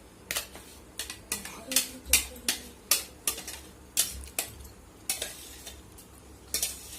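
A spoon or spatula stirring masala paste in a pan of hot oil, knocking and scraping against the pan about twice a second in an uneven rhythm.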